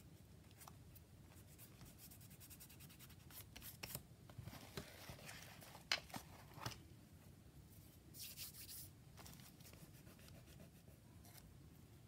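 Faint paper rustling and light taps as hands press on and move the pages of a handmade paper journal, with a brief louder rustle about eight seconds in.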